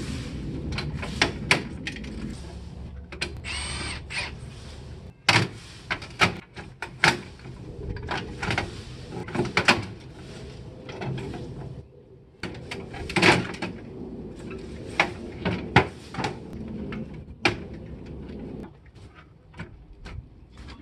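Tools and parts being handled during a CRT TV teardown: a string of sharp clicks, knocks and clatter over a low steady hum that stops shortly before the end.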